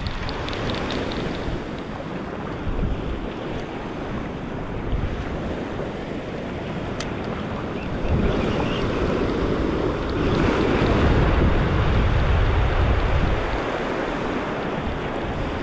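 Surf washing up the beach and wind buffeting the microphone: a steady rushing with a low rumble that swells louder about halfway through and stays up for a few seconds. A single sharp click sounds a little before the swell.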